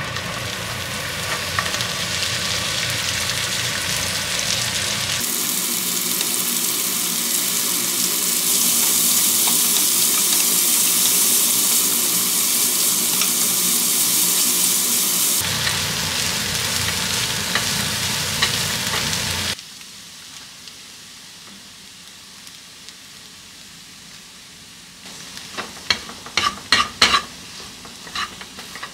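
Sliced onions and broccoli sizzling loudly as they are sautéed in butter in a nonstick frying pan. The sizzle drops away about two-thirds of the way through, and near the end a cluster of sharp clicks and scrapes comes as a utensil stirs flour into the vegetables in the pan.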